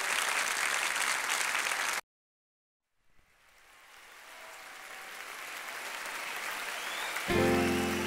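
Clapping over music that cuts off suddenly about two seconds in. After a second of silence, a steady rain-like hiss fades in, and sustained music tones begin near the end.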